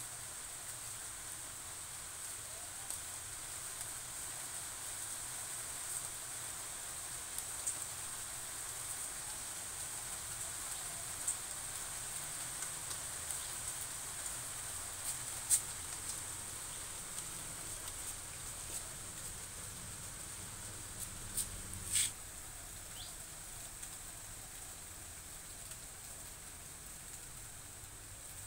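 Quiet outdoor ambience with a steady high-pitched insect drone and a few light clicks and knocks from small plastic plant pots being handled. The sharpest knock comes about 22 seconds in.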